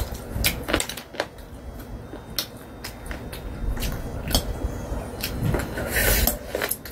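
Eating sounds: chewing with scattered mouth clicks, and metal chopsticks knocking and scraping against a glass bowl as noodles are stirred. A short hiss comes near the end.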